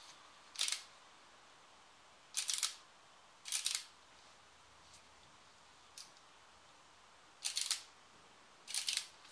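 Five short, sharp, high-pitched clicking rasps at uneven intervals, each about a quarter second, with two fainter ticks between them, over a faint steady hiss of heavy rain.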